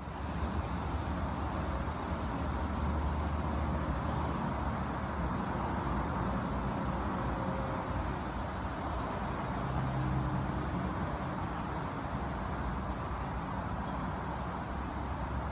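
Steady drone of highway traffic in the distance: tyre and engine noise blending into a continuous low rumble and hiss, without any single vehicle standing out.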